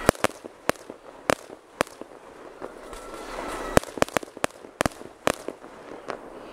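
Fireworks crackling overhead: more than a dozen sharp cracks and pops at irregular intervals, several coming in a quick cluster about four seconds in.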